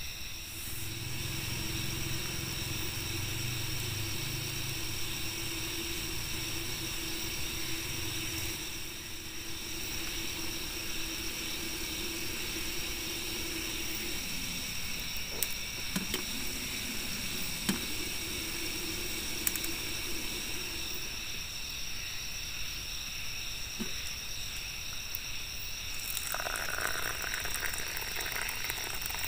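Crickets and other night insects chirring steadily in several high, even tones. A low hum sounds during the first several seconds, a few sharp clicks come in the middle, and a rougher hiss joins near the end.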